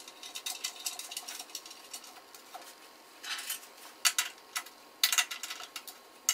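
Light handling clicks, taps and scraping as a wooden extension table and its small metal hardware are worked into place on a band saw, with clusters of quick clicks about three, four and five seconds in.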